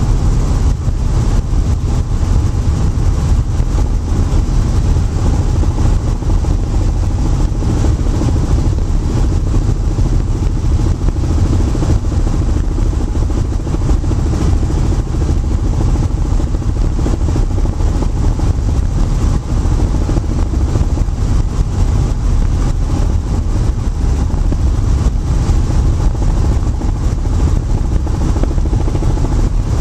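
Loud, steady cabin noise of a Robinson helicopter in forward flight: engine and rotor drone with rushing air, unbroken and heaviest in the deep bass.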